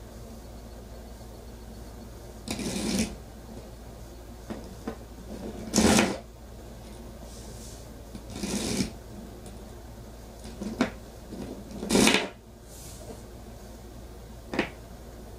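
A homemade electromagnetic train, an AA dry cell with neodymium magnets on both ends, rattling through a bare copper-wire coil in four runs of about half a second each. Short sharp clicks of the magnets against the coil and battery fall in between.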